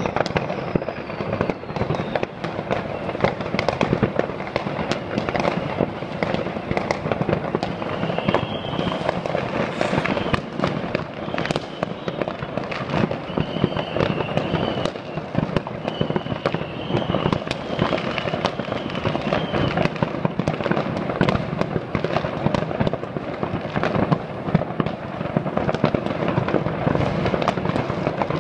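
Many consumer fireworks and firecrackers going off across a city at once: a dense, unbroken crackle of bangs, with a few short, high, wavering whistles.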